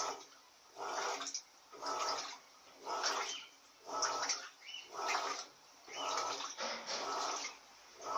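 Electrolux Silent Control 16 kg top-load washing machine agitating a duvet load in water during its silent wash stage: an even swish of water and fabric about once a second as the agitator turns back and forth.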